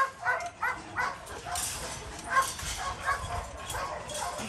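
A dog barking repeatedly in short, sharp barks.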